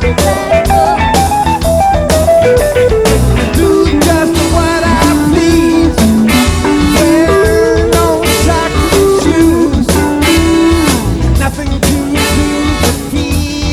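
Rock music with guitar and drum kit over a steady beat, with a melody line gliding between notes.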